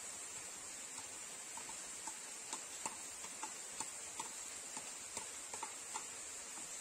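Ladle tapping and scraping chopped onions off a plate into a wok: a string of light, irregular clicks over a steady hiss.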